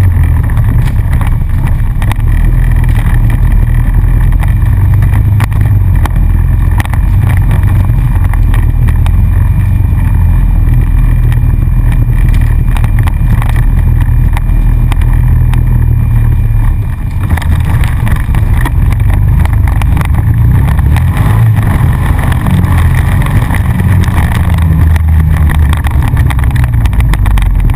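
ATV engine running while riding, heard close from on board the quad, its low engine note shifting up and down with the throttle and dipping briefly about seventeen seconds in.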